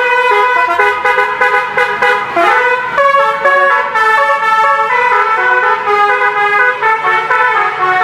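A bus's 'telolet' multi-tone air horns playing a loud melody, several horn notes sounding together and changing pitch in quick steps.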